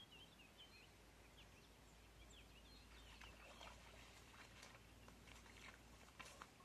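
Near silence with a few faint bird chirps at first, then faint crackling and rustling from about three seconds in as a deer pushes into dry reeds and brush, with two sharper snaps near the end.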